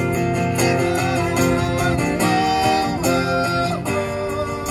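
Live acoustic music: a strummed acoustic guitar with a tambourine keeping a steady beat.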